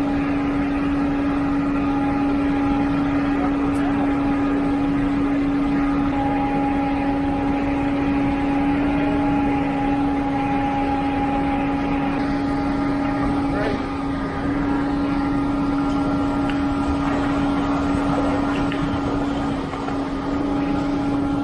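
Concrete pump truck running steadily, a constant engine-and-hydraulic drone with an unchanging hum, while concrete is pumped through the boom hose.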